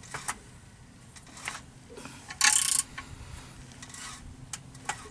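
Scattered metal clicks and scraping as the engine is worked round by hand at the flexplate, with a short, loud hiss about two and a half seconds in.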